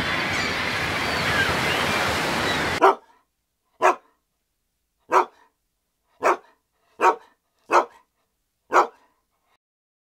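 Surf and wind noise that cuts off suddenly about three seconds in, followed by a dog barking seven times, single short barks roughly a second apart.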